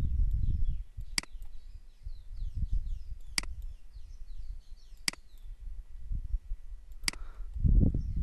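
Five sharp computer-mouse clicks, one every one to two seconds, over a low room rumble. Faint bird chirps sound in the background during the first half.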